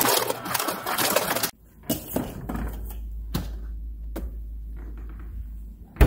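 LG refrigerator's through-door ice dispenser dropping cubed ice into a plastic cup, a clatter that stops suddenly about a second and a half in. A few separate clicks and knocks follow over a low steady hum.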